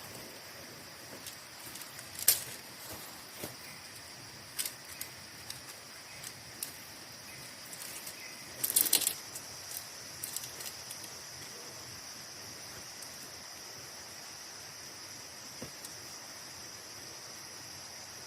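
Steady high-pitched chirring of crickets or other night insects, with scattered sharp clicks and snaps, the loudest a short cluster about nine seconds in.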